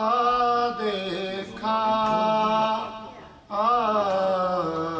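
A man's unaccompanied voice reciting an Urdu marsiya (elegy) in a chanted, sung style: long held melodic phrases, with a fresh phrase starting about a second and a half in and again near three and a half seconds.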